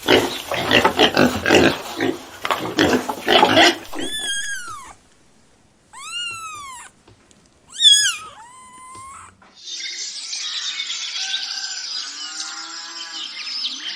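A run of different animal calls, one after another. First about four seconds of rough, rapid grunting calls, then several short arching, high-pitched calls, then a longer rasping call from about ten seconds in.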